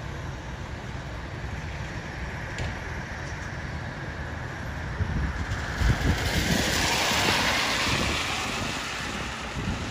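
A vehicle passes on the wet road: its tyre hiss swells about halfway through, peaks, then fades over about four seconds, over a steady low rumble with wind buffeting the microphone.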